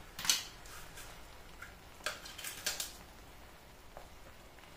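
A few short, light clicks and taps of kitchen utensils, one near the start and a cluster of three about two to three seconds in, over a quiet background.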